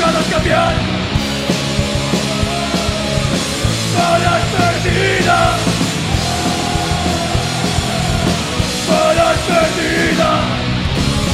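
Metal band playing live: electric guitars and drums at full volume, with a singer shouting lyrics into the microphone in bursts a few seconds apart.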